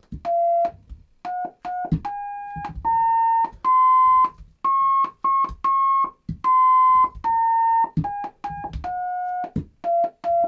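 Plain electronic sine-wave notes from an ESP32's DAC, played through a small amplifier module and speaker as fruit touch switches are pressed. The notes step up in pitch and then back down, each one switching on and off with a click, and a few break into short on-off stutters where a touch switch doesn't hold steady.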